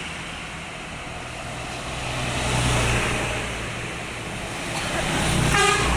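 Road traffic with vehicles passing close by: a low engine hum swells about halfway through and again near the end. A brief toot near the end is most likely a horn.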